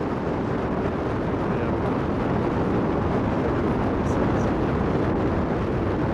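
Wind buffeting the microphone: a steady rumbling noise with no separate events.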